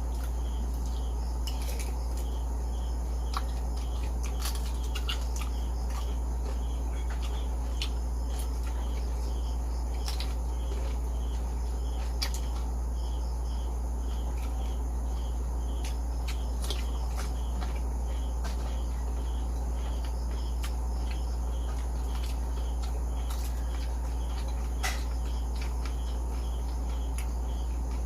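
Crickets chirping in a steady repeating pattern over a constant low hum, with scattered sharp clicks and crunches throughout.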